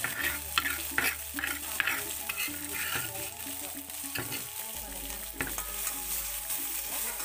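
Pounded chili and garlic sizzling in hot oil in a wok, with a steady frying hiss. A metal spatula stirs the paste, scraping and tapping against the wok several times.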